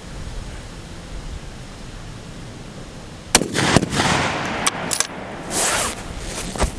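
Rifle shots on a long-range firing line: a sharp crack about halfway through, followed by several more cracks and reverberating noise over the next three seconds.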